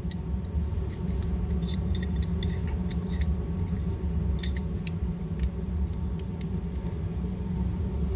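Scattered light metallic clicks and clinks of steel pistol parts being handled and set down during disassembly, over a steady low hum.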